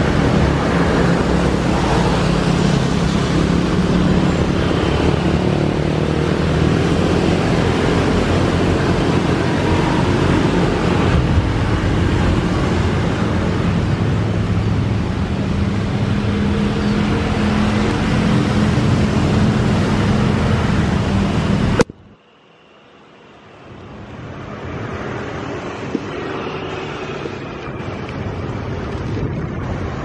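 Loud, steady jet airliner noise mixed with rain and wind as a plane comes in to land. After an abrupt cut about two-thirds of the way through, a Boeing 737's engine noise and runway spray rise steadily as it rolls out on the wet runway.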